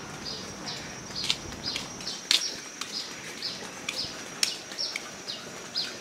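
A bird calling outdoors, repeating a short, high, falling chirp two or three times a second, over a steady thin high-pitched tone. A few sharp clicks come through now and then.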